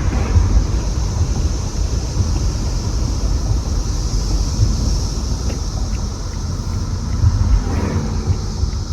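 A chorus of periodical cicadas: a steady high hiss, heard from a moving car over the low rumble of road and wind noise.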